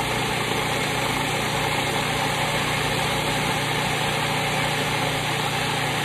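Old Cuisinart food processor running steadily, its motor humming as the blade chops a wet garlic-and-olive mix into a paste.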